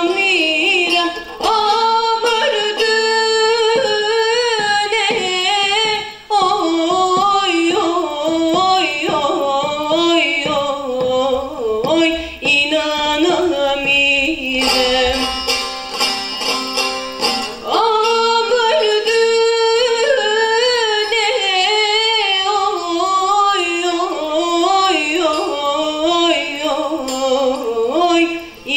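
A young woman singing a slow Turkish folk song solo into a microphone, amplified through the hall's speakers. The melody is long and ornamented, bending in pitch, and settles into steadier held notes for a few seconds around the middle.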